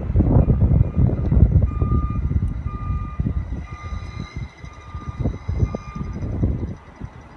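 Wind buffeting the microphone in uneven gusts, with a string of five short electronic beeps, about one a second, through the middle like a reversing alarm.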